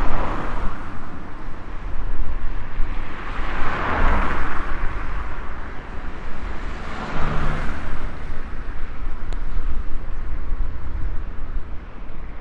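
Road traffic noise: a steady low rumble with vehicles swelling past, loudest about four seconds in and again around seven seconds in.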